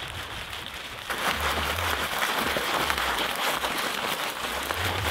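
A bundle of dry grass rubbed and twisted hard between two hands against a rock: a dense crackling rustle as the stems break up. It starts about a second in and stops near the end.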